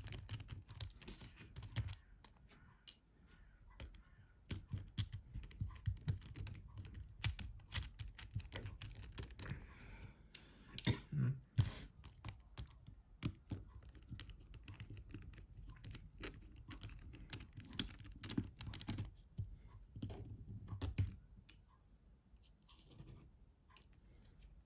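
Irregular small clicks and taps of a precision screwdriver and loose parts on a Nokia 6700 Classic's casing as its screws are undone and the phone is taken apart, with low handling noise beneath.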